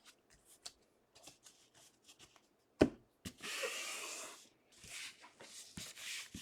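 Trading cards being handled and shuffled: scattered soft taps and rustles, a sharp tap about three seconds in, then a brief sliding rustle.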